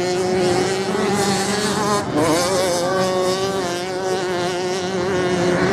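Several off-road motorcycle engines racing, their pitch rising and falling with throttle and gear changes, with a sharp rise about two seconds in.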